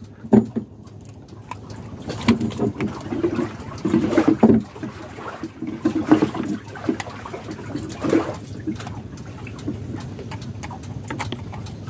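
Water sloshing and slapping against the side of a small wooden boat, with irregular small clicks and knocks as a caught fish and its line are handled to take the hook out.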